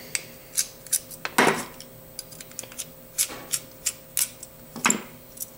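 Small metal clicks and clinks as a titanium framelock knife is taken apart with small screwdrivers: tool tips tapping and turning in the screws and metal parts knocking together, at an irregular pace.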